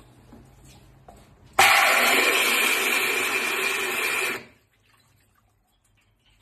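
Sink-mounted glass rinser spraying water up into a cup pressed down on it: a steady, loud rush of water that starts abruptly about one and a half seconds in and cuts off sharply about three seconds later.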